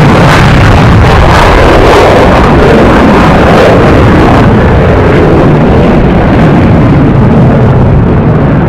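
Su-30MKI fighter jet's twin jet engines at take-off power as it lifts off and climbs away: a loud, steady rushing noise whose higher part thins out near the end.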